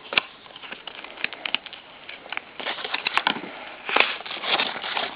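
Packaging of a Beyblade tournament box being handled and opened: scattered clicks and crinkling rustles, busier in the second half.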